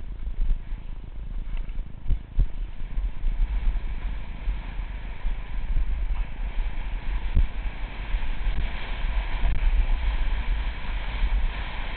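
Wind rumbling over the microphone and snowblades hissing over snow on a downhill run, louder in the second half, with a few short knocks.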